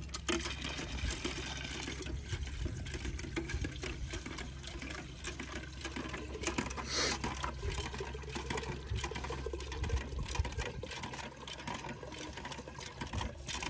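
Fresh curd being churned by hand into butter and lassi with a wooden churn in a pot: a rhythmic sloshing and knocking that keeps going throughout.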